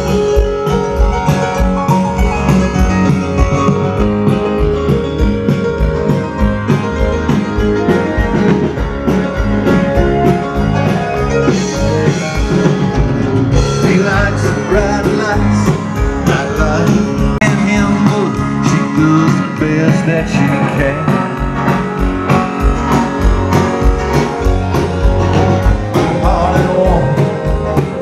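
Live band playing amplified rock music, with a steady drum beat, guitar and singing.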